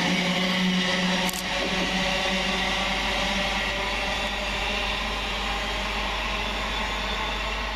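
Electric train running through the station: steady rolling noise with a layered motor whine, a low hum that fades out about three seconds in, and a single sharp click about a second in.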